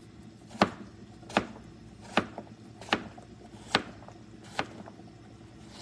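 Chef's knife chopping a peeled cucumber on a board: a steady series of sharp knocks as the blade hits the board, a little more than one chop a second.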